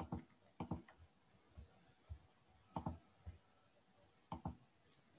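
Faint clicks of a computer mouse, mostly in quick pairs: four pairs spread over a few seconds, with a few softer single clicks between them.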